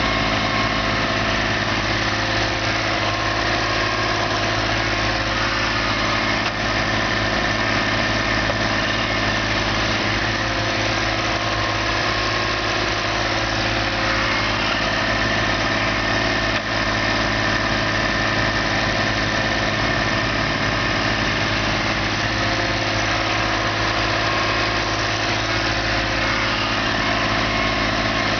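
Small excavator's diesel engine running steadily at a constant speed.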